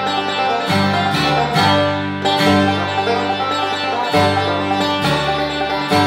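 Bluegrass instrumental: a resonator banjo picking quick rolls over strummed acoustic guitar and plucked upright bass notes.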